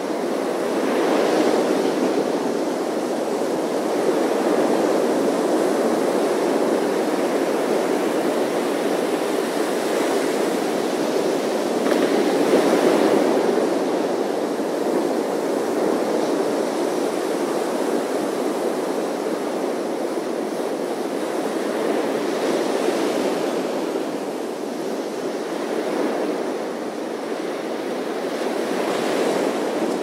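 Ocean surf on a sandy beach: a steady wash of water with louder surges as waves break, about every ten seconds.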